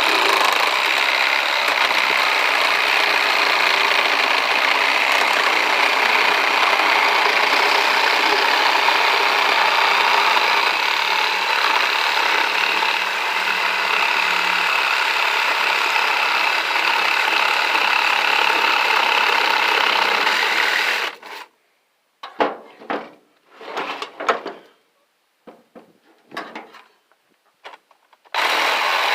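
Power tool running steadily under load, cutting into an electric motor being scrapped for its copper. It stops about 21 seconds in, a few short knocks and bursts follow, and it starts again near the end.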